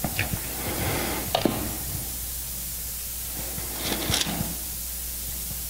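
Steady hiss and low hum of an open microphone, with a few faint short rustles: one near the start, one about a second and a half in, and a couple about four seconds in.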